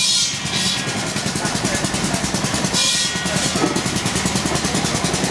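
Steam traction engine running as it drives slowly, with a rapid, steady mechanical beat and two short bursts of hiss, one at the start and one about three seconds in.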